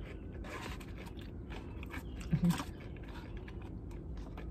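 A person chewing fried food close to the microphone: soft crunches and wet mouth clicks throughout, with a brief hummed voice sound about two and a half seconds in.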